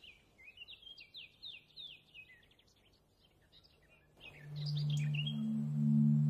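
Birds chirping in quick, falling notes, then a brief lull. About four seconds in, a low steady tone swells in: the opening of the theme music.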